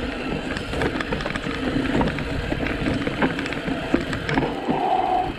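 Mountain bike rolling fast down a rocky, rooty dirt trail: tyres crunching over stones and the bike rattling, with many small knocks from the rough ground, and a short squeak about five seconds in.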